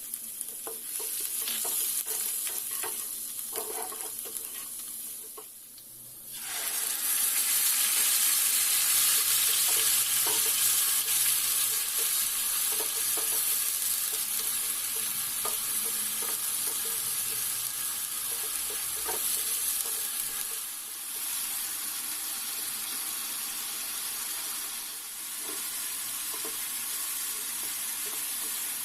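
Food frying and sizzling in hot oil in a pan while being stirred, with small scraping clicks of the spoon. The sizzle grows much louder about six seconds in and then holds steady.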